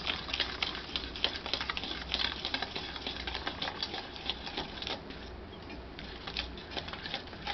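Spoon mixing dry flour into eggless cake batter in a stainless steel bowl: quick, irregular scraping and ticking of the spoon against the metal, easing off briefly about five seconds in.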